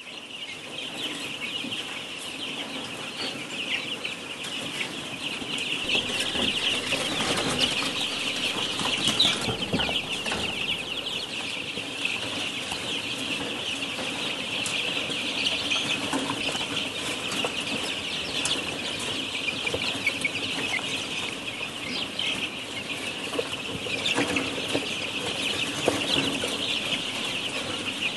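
Dense, continuous peeping of a large flock of caged young laying-hen pullets, many high calls overlapping, over a steady low hum.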